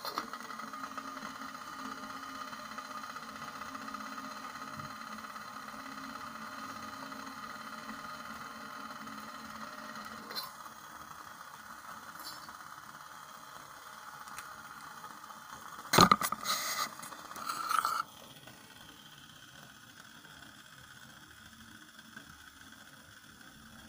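Homemade capillary hoop alcohol stove burning under a steel pot, its flame jets making a steady hiss. About two-thirds of the way in comes a sharp knock and a couple of seconds of clattering, after which the hiss is quieter.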